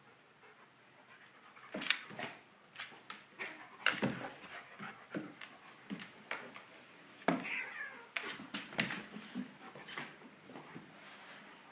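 A dog and a cat scuffling on a hardwood floor: irregular knocks and scrapes of paws and claws on the wood, with a short falling cat cry about seven and a half seconds in.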